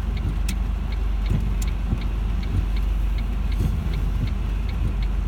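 Car cabin while driving: a steady low rumble of road and engine noise, with a light, regular ticking about three times a second.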